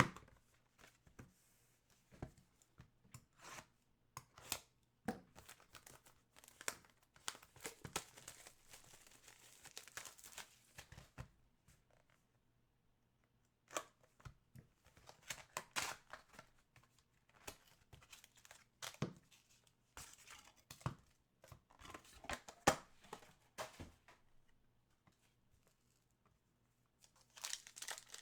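Hockey card packs being torn open and their foil wrappers crinkled, with the cards handled and flicked through in between. There are two short lulls.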